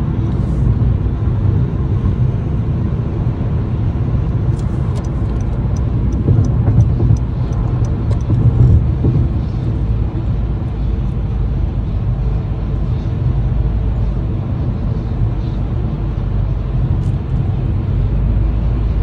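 Steady low road and engine rumble of a car driving at highway speed, heard from inside the cabin.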